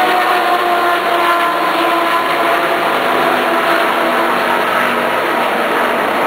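Race cars running practice laps on the circuit: several engine notes at once, blending into a loud, steady sound whose pitch slides slightly as the cars come and go.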